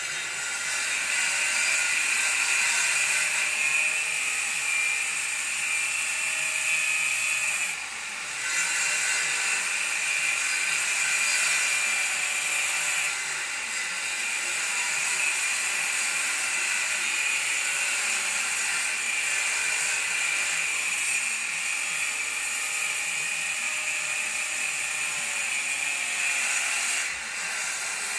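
A power tool running steadily with a high-pitched whine, easing off briefly about 8 seconds in and again near the end.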